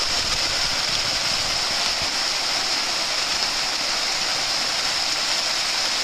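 Small waterfall cascading over rocks: a steady, unbroken rush of water.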